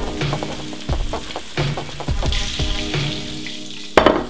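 Hot oil and fat sizzling in a frying pan, under background music with a steady beat and held notes. A sharp click near the end is the loudest single sound.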